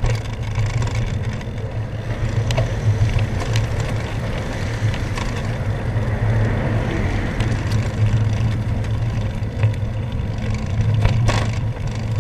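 Steady low rumble of wind and tyre noise on the handlebar-mounted camera of a road bicycle riding on a wet road. An oncoming car swells past about six to eight seconds in.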